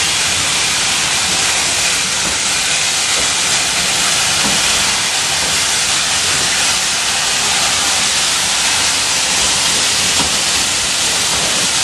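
A steady, loud hiss of escaping steam, with a low, uneven rumble of railway carriages rolling slowly past underneath it.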